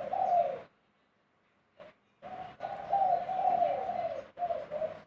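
Male spotted dove cooing in a mellow, mid-pitched voice. The coo breaks off about half a second in and starts again after a pause of about a second and a half.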